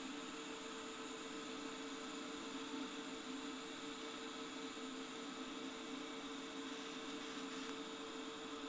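Faint, steady electrical hum with a hiss from a TIG welding setup as it lays a bead on stainless steel. The sound holds unchanged when the arc goes out near the end.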